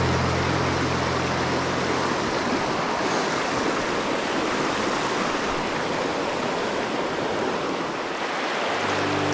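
Steady rushing of a mountain stream, an even hiss of flowing water. Background music fades out over the first couple of seconds and comes back near the end.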